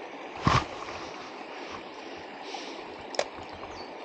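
Steady rush of flowing stream water. A short loud noise cuts in about half a second in, and a sharp click comes about three seconds in.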